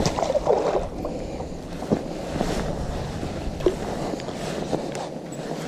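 Wind noise on the microphone and water movement around a small fishing boat, with a few light knocks.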